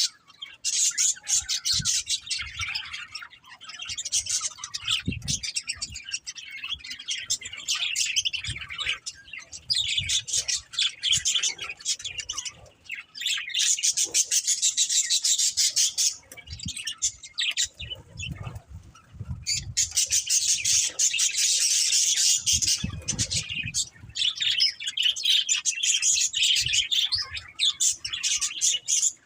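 Budgerigars chirping and chattering in rapid, continuous bouts, with short pauses every few seconds.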